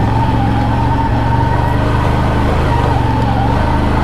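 CFMoto CFORCE 1000 Overland ATV engine running steadily while riding along a trail, with a steady whine over the engine note.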